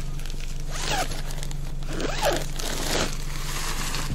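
Zipper of a nylon tent carry bag pulled in three short strokes, with the bag's fabric rustling.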